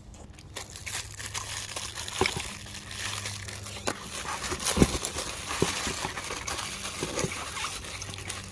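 Packaging crinkling and rustling as parts are handled and unpacked, with a few light clicks and knocks, the sharpest about halfway through.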